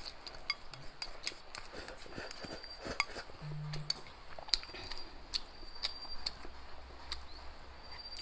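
Wooden chopsticks clicking and scraping against a bowl as the last of the food is scooped out: irregular sharp clicks, a few every second.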